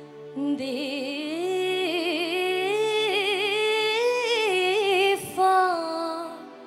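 A woman singing solo into a handheld microphone, a slow ballad with heavy vibrato over soft sustained backing chords. Her voice comes in about half a second in and climbs through a long held phrase, breaks briefly just after five seconds, then sings a shorter, falling phrase.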